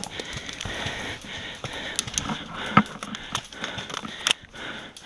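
Close rustling and scraping of clothing and gear against dry brush and leaf litter as a player scrambles low through undergrowth, with scattered sharp clicks and knocks, the loudest just under three seconds in and again a little after four seconds.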